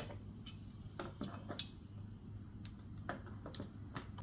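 Pliers clicking and tapping on a small metal safety pin (cotter pin) in a toy car's wheel as it is flattened and worked out: a string of light, irregular metallic clicks.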